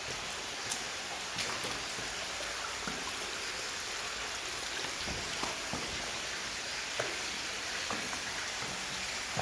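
Steady rush of running water from a shallow stream, with scattered faint ticks.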